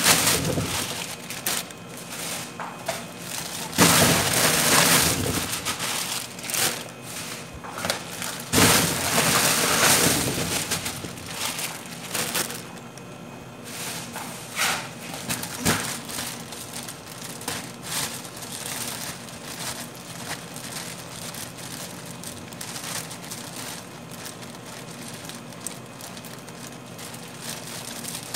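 Plastic bag crinkling and rustling as it is handled and filled with limes, in several loud bursts with scattered knocks, quieter in the second half.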